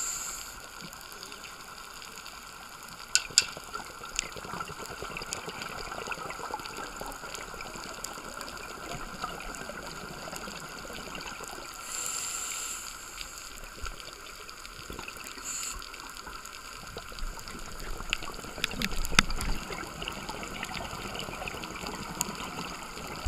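Scuba breathing underwater: a regulator hissing on the inhalations, briefly just at the start and again about 12 seconds in, with exhaust bubbles rumbling out around 19 seconds. Under it runs a steady watery hiss with faint crackling, and a couple of sharp clicks come about 3 seconds in.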